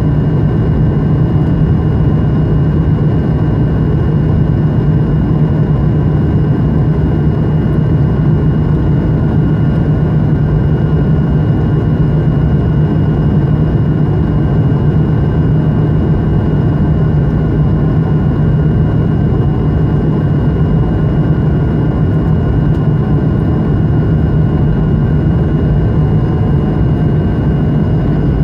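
Steady cabin noise of an Airbus A220-100 climbing after takeoff, heard from a window seat: its Pratt & Whitney PW1500G geared turbofans and the airflow make a deep, even rumble, with a few faint steady whining tones above it.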